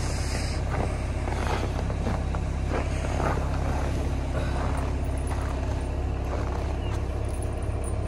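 Mahindra Scorpio N 4x4's diesel engine idling steadily while it warms up after a cold start in about −11 °C. A few faint clinks come from a steel snow chain being laid out beside the wheel.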